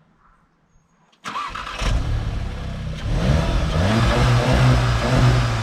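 A car engine starts with a sudden loud burst about a second in, then revs up and down a few times.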